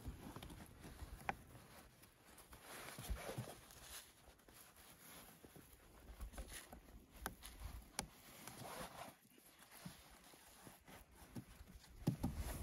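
Faint rustling and scattered light clicks and taps of hands working a ball bungee cord around a log pole and through a tarp grommet.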